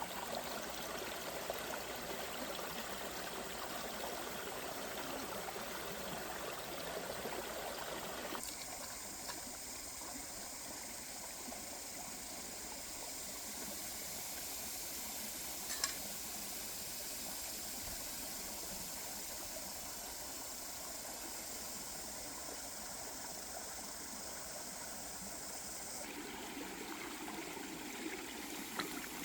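Steady rush of flowing water, like a stream, whose sound changes abruptly about a third of the way in and again near the end. A single sharp click comes about halfway through.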